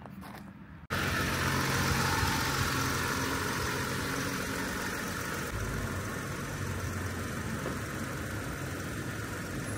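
Pickup truck engine running at low revs while the truck reverses slowly up to a trailer to hitch it. The sound starts abruptly about a second in, then runs steadily, with a deeper rumble joining about halfway through.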